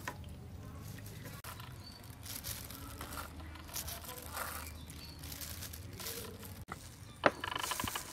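Faint background with a few soft handling rustles and light clinks. About seven seconds in there is a sharp knock, then a crackling scrape as a spoon digs into the crisp skin of a deep-fried fish.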